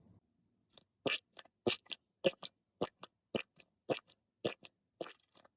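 Squishy stress toy being squeezed over and over by hand, giving short crunchy squelches at a steady rhythm of about two squeezes a second, each a sharper squish followed by a softer one.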